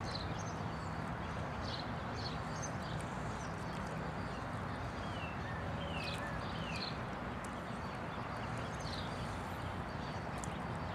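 Small birds peeping and chirping, with short high calls scattered throughout and a few falling calls about halfway through, over a steady low outdoor rumble.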